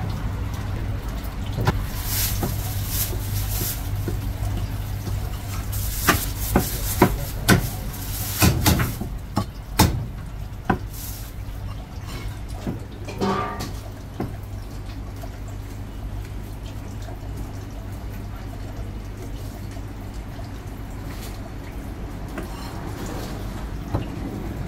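A heavy cleaver chopping marinated meat on a thick wooden chopping block: sharp, irregular chops, most of them in a quick cluster several seconds in, with a last one a little later. After that comes quieter handling, over a steady low hum.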